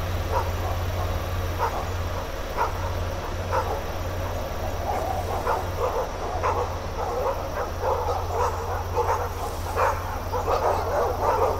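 A dog barking repeatedly, the barks spaced out at first and coming thick and fast in the second half, over a steady low hum.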